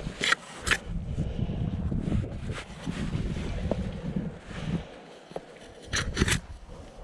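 Hands and shoes scraping on rock during a crack climb, with two sharp scrapes near the start and two near the end, over a low rumble of wind on the microphone.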